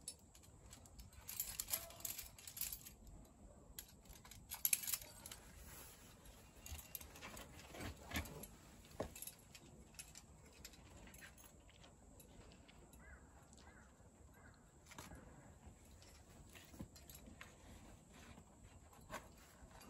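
Metal trad-climbing gear, cams and carabiners racked on a harness, clinking in short scattered jingles as the climber moves up a crack. The jingles are busiest in the first half and sparser later.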